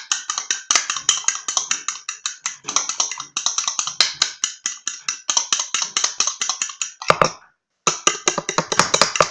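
A metal fork clicking rapidly against a dish, about eight to ten taps a second, stopping briefly about seven and a half seconds in and then going on.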